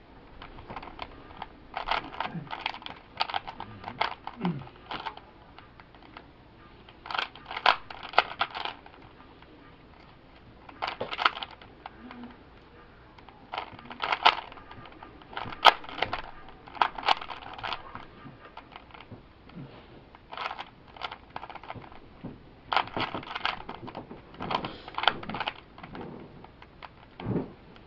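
A 3x3 Rubik's cube being turned by hand in quick bursts of plastic clicking and clacking, each flurry of turns lasting a second or two, with short pauses between them.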